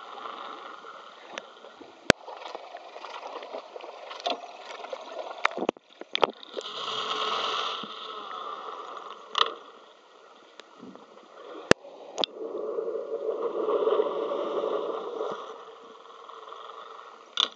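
Suzuki 150 outboard's propeller spinning, heard underwater: a rushing, churning noise of water and cavitation bubbles that swells louder twice. A few sharp clicks cut through it.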